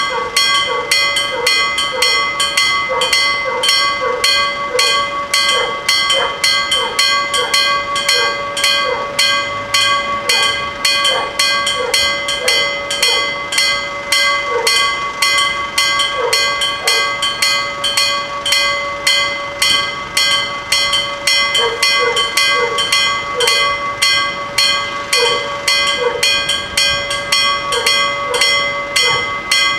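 Level crossing warning bells ringing continuously in rapid, evenly spaced strokes, sounding while the crossing is closed for an approaching train.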